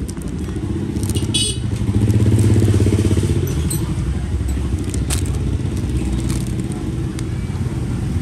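Motorbike engine running steadily, with a fast even pulse, and a few sharp clicks and a brief high metallic ring over it.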